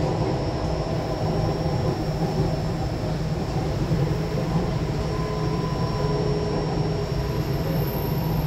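Running noise inside a moving MRT Jakarta 1000 Series (Nippon Sharyo) metro car: a steady low rumble of wheels on rails, with a thin steady high tone over it.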